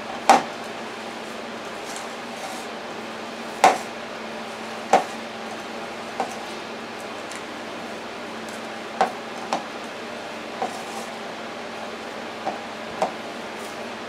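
Hands kneading a ground kielbasa and panko breadcrumb mixture in a ceramic bowl, with about nine short, sharp knocks against the bowl at irregular spacing; the loudest comes just after the start. A steady hum runs underneath.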